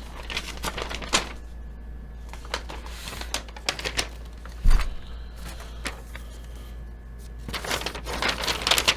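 Scattered sharp clicks and taps from hard objects being handled, with a low thump about four and a half seconds in and a denser run of clicking and rustling near the end.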